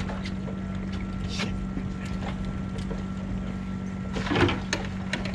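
Boat's outboard motor idling with a steady low hum, with a few light knocks and a short clatter about four seconds in.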